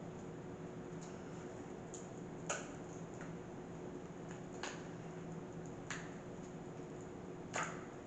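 Dried hot glue being worked and peeled out of a pop-it mould: four or five faint, scattered clicks and crackles, the last one the loudest. A faint steady hum runs underneath.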